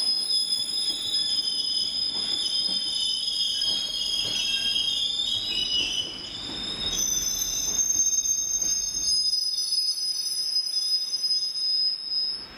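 Train wheels squealing against the rails as a train passes, a steady high-pitched squeal over a low rumble with scattered clicks from the wheels.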